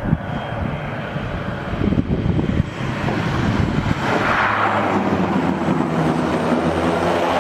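Propeller airplane engines running with a rough low rumble, growing louder into a steady humming drone about four seconds in.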